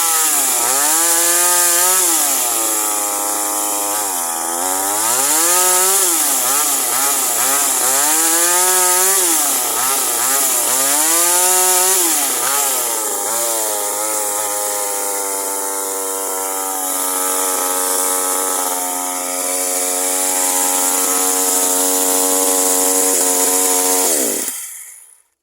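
Toyama TCS25X G2 25.4 cc two-stroke chainsaw engine running at high revs, its pitch repeatedly dipping and recovering as the chain takes load in cuts. It then holds a steadier high speed and cuts off suddenly near the end.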